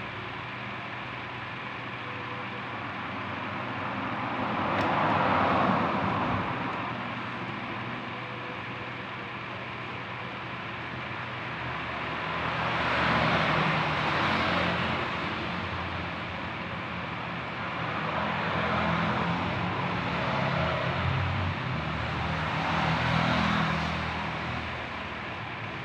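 Background traffic noise: vehicles passing by, their sound swelling and fading slowly about four times over a steady low hum.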